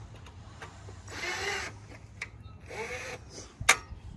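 Cordless drill run in two short whining bursts, about a second in and again about three seconds in, driving a fastener on a mini bike's engine. A single sharp click comes near the end.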